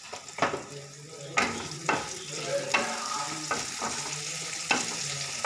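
Sliced onions sizzling in hot mustard oil in a kadai while a spatula stirs them. The spatula scrapes and knocks against the pan about half a dozen times, and the sizzle grows louder about a second and a half in.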